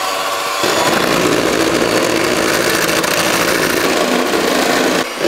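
Electric hand mixer running on high speed, its beaters whipping egg whites and sugar after the last sugar addition, on the way to stiff meringue. The motor steps up in speed about half a second in and drops off sharply near the end.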